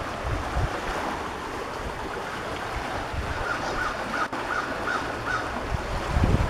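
Wind blowing across the microphone: a steady rushing noise with irregular low buffeting. A little past the middle comes a quick run of about six faint short calls.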